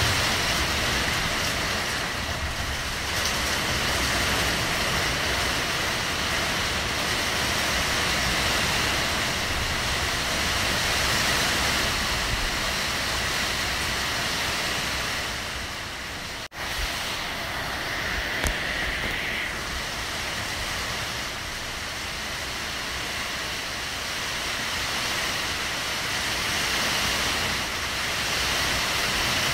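Heavy rain pouring steadily, a dense, even hiss. The sound drops out for an instant about halfway through.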